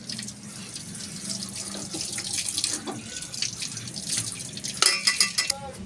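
Water running from an outdoor tap and splashing as a utensil is rinsed under the stream. About five seconds in, a few sharp clinks with a brief ring stand out as the loudest sounds.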